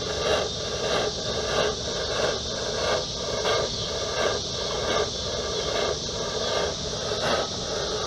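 Chauvet Hurricane fog machine, converted into a smoke machine, running and pushing smoke into the engine's intake with a pulsing hiss a little over twice a second. This is a smoke test to find a vacuum leak.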